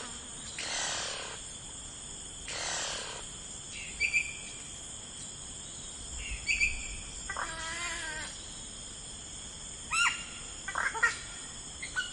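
Outdoor birdsong ambience: scattered short bird chirps over a steady high background hum. Near the middle comes one longer, wavering animal call with a rich stacked pitch, and there are two soft rushing swishes in the first few seconds.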